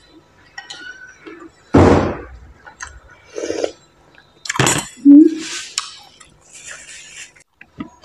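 Metal spoon clinking and knocking against a ceramic noodle bowl, with eating and sipping sounds from spoonfuls of soup. The loudest knocks come about two seconds in and just before the five-second mark.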